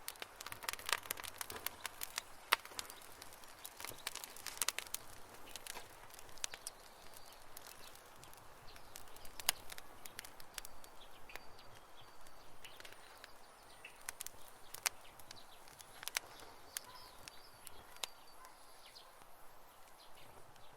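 Wood campfire crackling, with irregular sharp pops and snaps, thickest in the first few seconds. Faint bird chirps sound in the background in the second half.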